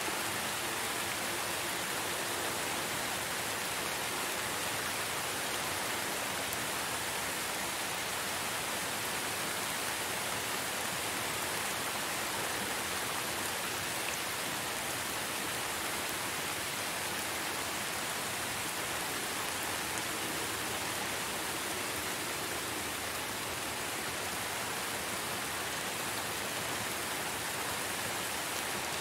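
Steady rain falling: an even, continuous hiss with no single drops or gusts standing out.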